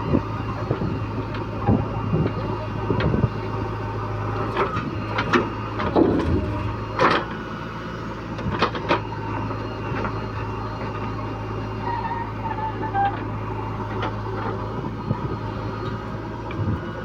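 Heavy diesel machinery running steadily, with a handful of sharp metallic clanks about five to nine seconds in.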